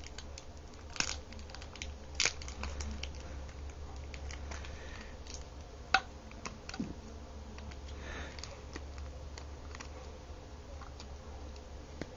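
Paper and plastic packaging being peeled and handled: light crinkling with scattered small clicks and taps, a few sharper ones about one, two and six seconds in, over a low steady hum.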